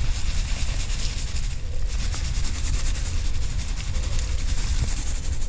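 Granules of Preen Garden Weed Preventer rattling in its shaker canister as it is shaken out, a steady fast hissing rattle with a brief lull near two seconds in, over a low rumble.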